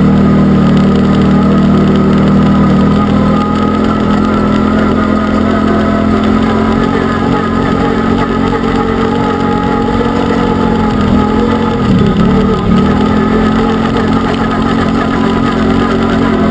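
Arctic Cat Wildcat UTV engine running at steady high revs while driving off-road. The revs climb at the start, dip briefly and come back up about three-quarters of the way through, and drop near the end.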